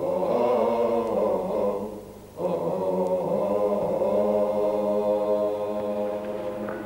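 Vocal chanting in long held notes, breaking off about two seconds in and starting again, then growing slightly fainter near the end.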